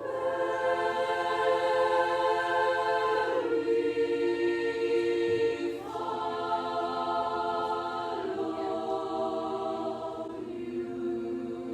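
Choir of women's voices singing long held chords, moving to a new chord every two to three seconds.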